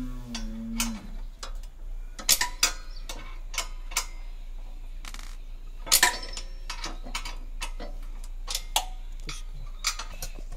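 Irregular metallic clinks and taps of a 13 mm spanner working nuts and bolts while a sheet-metal guard strip is bolted onto a power weeder, with sharper knocks about two and six seconds in.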